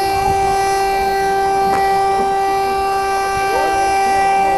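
Warning siren held at one steady pitch without a break: the alert sounded before a dynamite blast in a quarry. Faint voices underneath.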